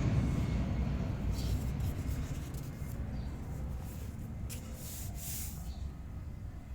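Low background rumble that slowly fades, with a few faint, brief scratchy rustles.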